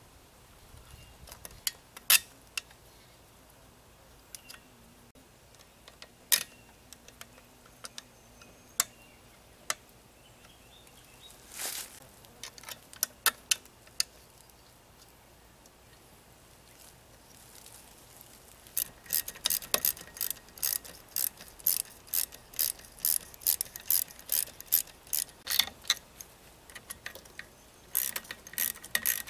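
Scattered metal clicks and taps of parts being fitted, then a hand socket ratchet clicking in a long run of quick strokes, about two or three a second, with a shorter run near the end, as the bolts of an outboard motor's water pump housing are run down.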